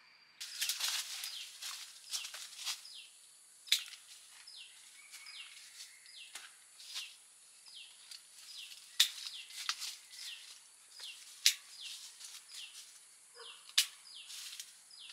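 A bird repeating a short falling chirp again and again, with a thin steady high whine behind it. Over it come rustling and a few sharp snaps as the branches of a guava tree are handled for picking.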